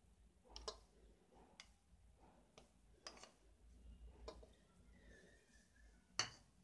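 Near silence broken by faint, irregular clicks and taps of a metal spoon against the curd bowl as thick curd is scooped out onto flour, with a sharper click near the end.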